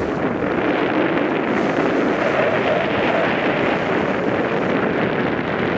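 Steady rush of wind and water aboard a sailboat under sail, an even hiss with no breaks.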